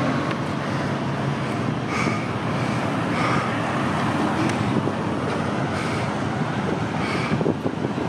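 Steady road traffic noise with wind buffeting the microphone, and faint short sounds now and then.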